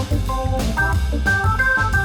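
Background music: an organ-led track with a bass line and a steady beat.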